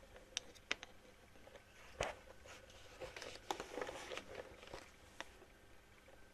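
Faint handling noise: a few sharp clicks and light knocks, with a stretch of soft rustling and tapping about three to four and a half seconds in.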